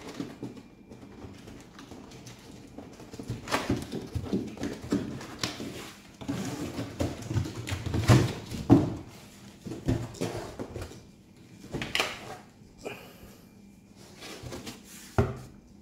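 A large cardboard shipping box being opened and its contents handled: irregular scraping, rubbing and knocking of cardboard and packing, louder in the middle, with a few sharp knocks near the end.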